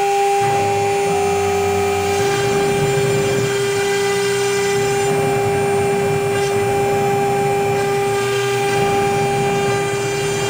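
Spindle motors of a double-head CNC router running with a steady whine, over a shifting lower rumble from the machine at work.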